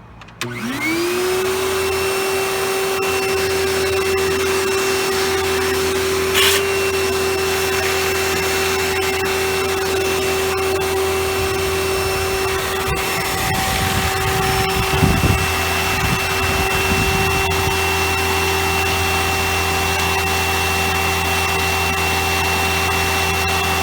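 Kenmore Elegance upright vacuum cleaner switched on for a test run: the motor spins up about half a second in, rising quickly to a steady whine over a rush of airflow, and keeps running. A brief knock comes about six seconds in, and some uneven low rumbling a little past the middle.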